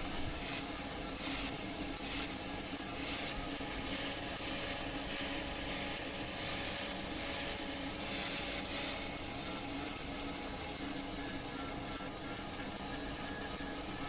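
Angle grinder with an 80-grit flap disc grinding the weld-built steel jaws of a post vise: a steady abrasive hiss over the even hum of the motor.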